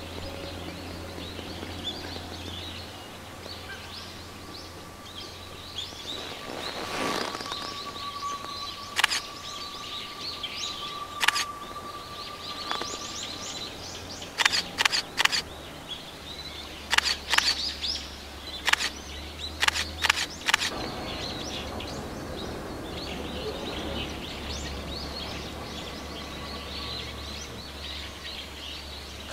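Small birds chirping and twittering over a low distant rumble. A steady high whine holds for several seconds early on, and a run of sharp clicks comes in pairs and threes in the middle, as a small diesel-hauled train crosses a steel railway bridge far across the valley.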